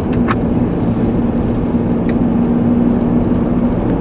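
Car running along the road, heard from inside the cabin: a steady engine hum over low road noise, with two short clicks right at the start.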